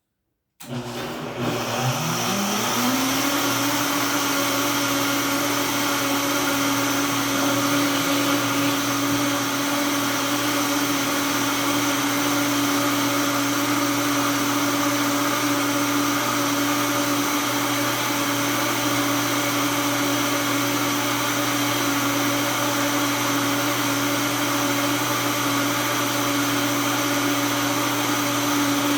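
Countertop blender switching on about half a second in, its motor rising in pitch over the first couple of seconds and then running steadily while it blends hemp seeds, sesame seeds and water into hemp milk.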